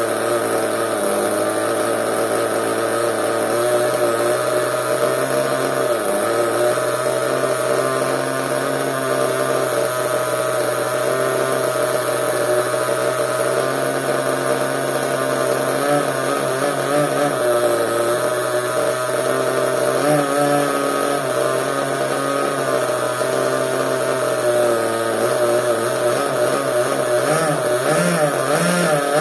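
Small two-stroke engine of an RC monster truck running steadily at a fairly constant speed, its pitch wavering slightly.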